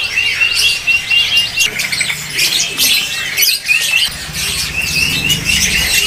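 Many caged songbirds chirping and calling at once, a dense overlapping chorus of high chirps and short sweeping calls. Through it runs a fast series of short repeated whistled notes, all at the same pitch.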